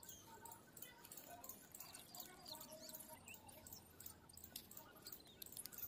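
Faint swishing strokes of a long-handled grass broom sweeping a concrete floor, with small high chirps over it.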